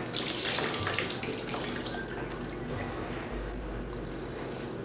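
Water running and splashing steadily, at an even level throughout.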